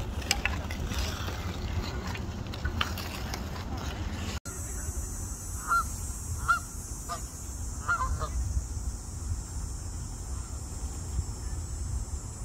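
Canada geese honking: about five short honks in quick succession, starting a little past the middle, over a steady low rumble.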